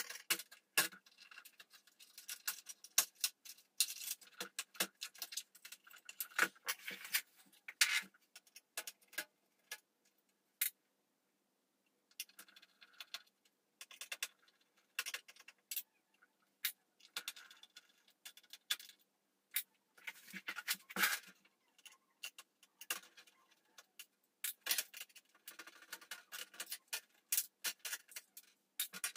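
Scattered clicks, taps and light metallic rattles from hands handling parts inside a steel desktop PC case, with a pause of about two seconds near the middle.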